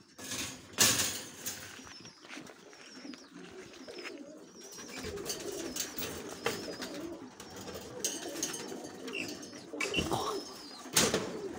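Domestic pigeons cooing in a loft, with a sharp knock about a second in and another near the end.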